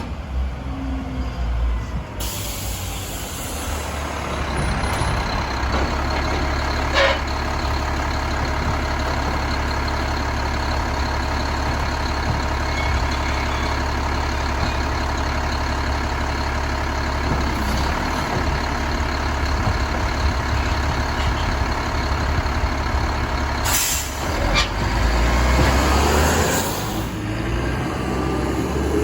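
Mack LEU garbage truck with a Labrie side-loader body, its diesel engine running steadily, with a sharp hiss of air brakes near the end.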